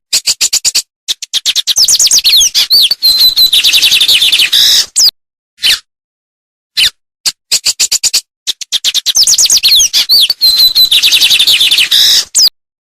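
A songbird singing two long bursts of fast, varied song. Each begins with separate short notes that speed up into a rush of warbles, sweeps and trills. The first ends about five seconds in, and the second, nearly the same as the first, ends near the end.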